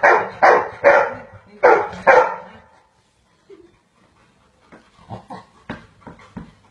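Dog barking in a quick run of about five loud barks over the first two seconds, then stopping, with only a few faint clicks after.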